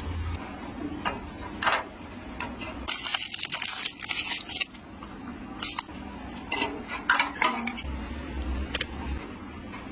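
Metal tools and parts clinking and knocking in irregular handling, with a hiss lasting a second or two near the middle.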